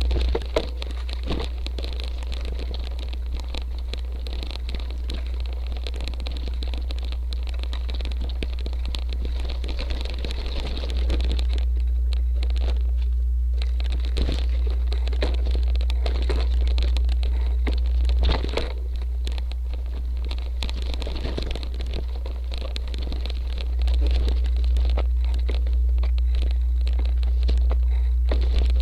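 Motobecane Fantom Cross cyclocross bike tyres rolling over rocky gravel and mud: continuous crunching and crackling, with quick clicks and knocks as the bike rattles over the stones, over a steady low rumble.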